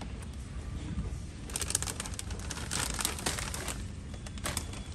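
Plastic bags rustling and crinkling in short spells, about a second and a half in, again around three seconds in, and once near the end, over a steady low background hum.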